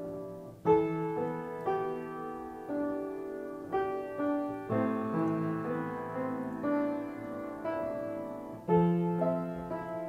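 Slow background piano music, a new note or chord struck about once a second.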